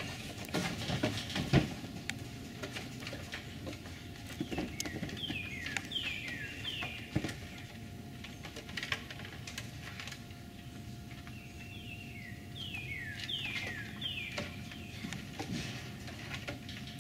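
Black bear cubs clambering about their pen: scattered knocks and scrapes on wooden platforms and wire mesh, the loudest knock about a second and a half in. A songbird sings a phrase of four or five quick down-slurred notes twice, a few seconds in and again past the middle.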